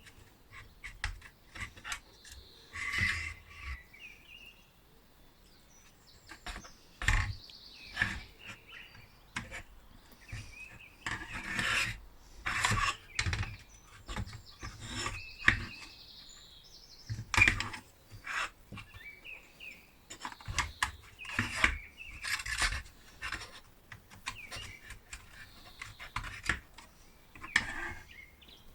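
Irregular scraping, rubbing and metallic clinks of hand work on a tinplate toy tractor's metal parts, coming in uneven strokes and knocks. Birds chirp faintly behind.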